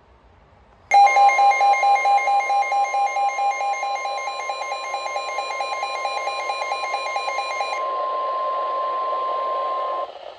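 Weather-radio alert tone: a steady tone of about 1050 Hz starts abruptly about a second in and holds until near the end, under a rapid pulsing electronic beep that stops a couple of seconds before it. Radio hiss runs underneath.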